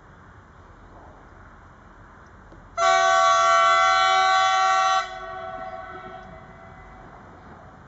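Stadler Regio-Shuttle RS1 diesel railcar's horn sounding one loud blast of about two seconds, trailing off over the next two seconds.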